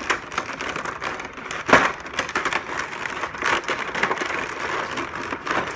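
Plastic toy packaging crinkling and clicking as parts are handled and pulled from the tray, with a sharper crack a little under two seconds in.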